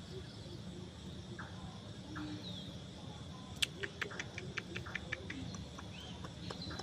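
Faint chirping over a steady high-pitched drone, broken a little past halfway by a quick run of about a dozen sharp clicks.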